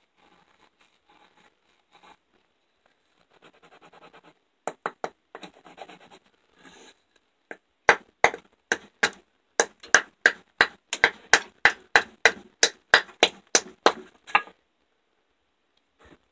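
A fixed-blade knife scraping and shaving along a wooden stick in light strokes, then chopping down into the stick in a quick, regular run of sharp knocks, about three a second, for about six seconds before stopping.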